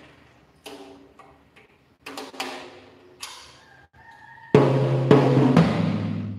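Single strikes on a drum tom with a newly fitted 12-inch Remo head, each ringing briefly at a low pitch as the head is tried out. About four and a half seconds in, the full drum kit comes in loudly, toms and bass drum under ringing cymbals.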